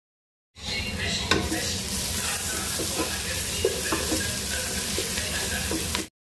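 Sliced red onions and ginger paste sizzling in hot oil in an aluminium pot. A wooden spatula stirs them and knocks against the pot now and then. The sound starts about half a second in and cuts off suddenly near the end.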